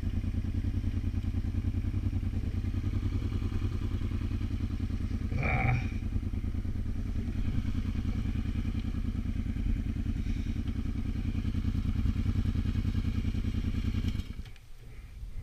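Motorcycle engine running steadily at low revs with an even pulsing beat, then switched off about fourteen seconds in. A brief louder sound comes about five and a half seconds in.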